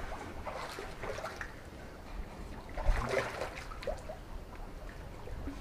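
Faint water splashing and trickling against the dock, with a single sharp knock about three seconds in.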